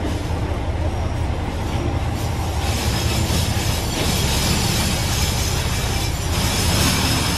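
Kyoto Tango Railway KTR8000 diesel railcar pulling slowly into the platform: a steady low diesel rumble, joined about two and a half seconds in by a loud hiss of wheels and brakes on the rails that lasts almost to the end.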